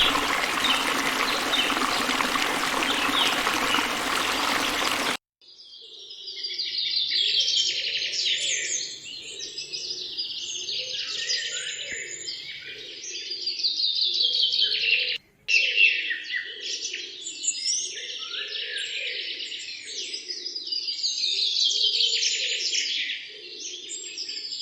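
A steady rushing noise for about five seconds, then an abrupt cut to a flock of birds chirping and calling over one another in dense, overlapping, falling phrases, with a brief break about fifteen seconds in.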